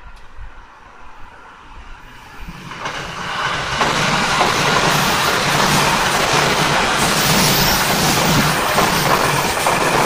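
JR West 221-series electric train approaching and passing close by a level crossing, its noise building from about three seconds in and staying loud. Faint steady tones of the level-crossing warning bell can be heard under it at the start.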